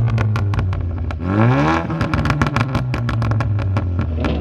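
Car engine idling and revved once about a second in, the pitch rising and falling back to idle, with a run of sharp clicks over it.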